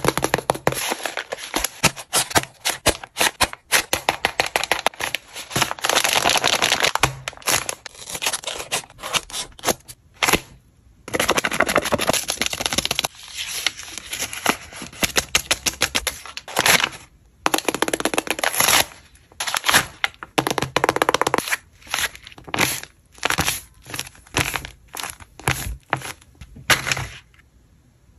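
Paper rustling and crinkling in bursts, broken by many rapid clicks and taps, as a handmade paper blind bag is handled and opened by fingers tipped with paper claw nails.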